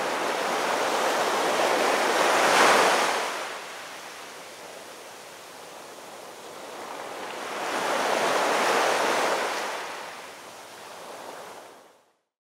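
Sea waves washing in: rushing surf noise that swells twice, about six seconds apart, then fades out near the end.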